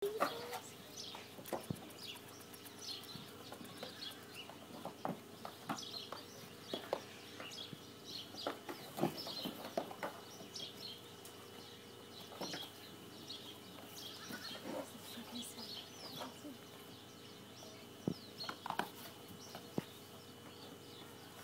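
Many short bird chirps scattered throughout, over a steady hum, with occasional clicks and knocks.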